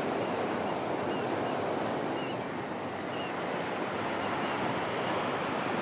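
Sea surf and wind: a steady, even rushing wash of waves.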